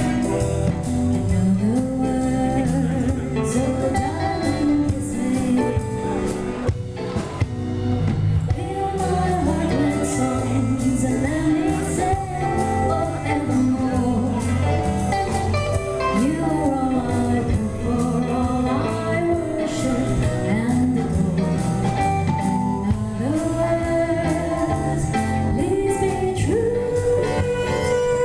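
Live band performance: a woman sings the lead melody into a microphone, backed by keyboard and guitars, amplified through a PA system. The music runs continuously at an even, full level.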